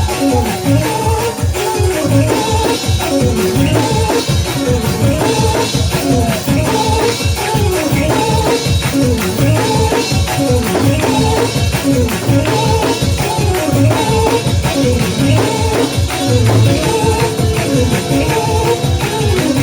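Fast, upbeat gospel praise music with a driving drum beat, tambourine and keyboard or organ, loud and steady throughout.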